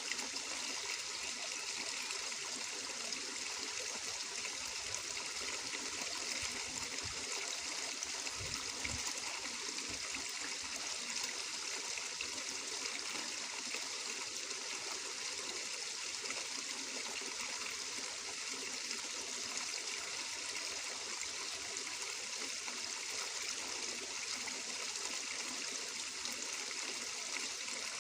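Water flowing and trickling steadily, like a small stream running over stones.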